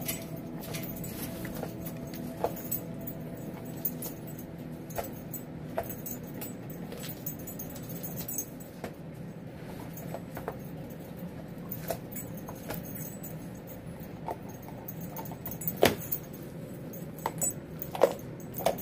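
A large puppy chewing and gnawing on a raw deer leg: scattered clicks and cracks of teeth on bone, with a few louder cracks near the end, over a steady low hum.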